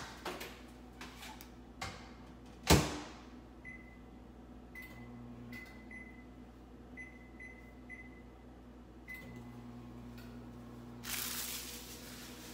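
Over-the-range microwave oven: the door shuts with a loud clunk, then the keypad beeps about eight times. The oven then starts running with a low steady hum, warming food. A short burst of rustling noise comes near the end.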